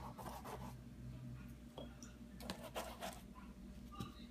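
Faint scratchy rubbing of a paintbrush on paper and in the paint cakes, in a few short strokes, over a low steady hum.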